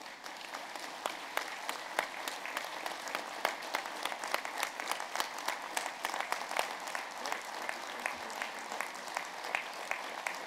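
A large audience applauding, the clapping swelling at the start and then holding steady.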